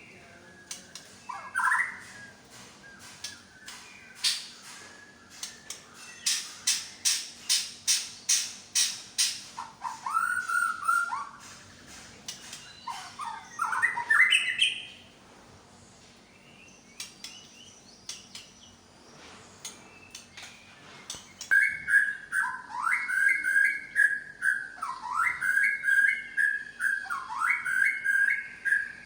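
White-rumped shama (Medan murai batu) singing a varied song: a fast run of sharp high notes, then swooping whistles, and from about two-thirds through a repeated rising-and-falling whistled phrase. It is pouring out its repertoire of learned fill-in calls (isian).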